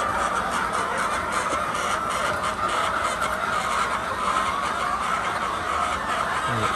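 A large flock of laying hens clucking and calling all at once, a steady, dense din of overlapping calls.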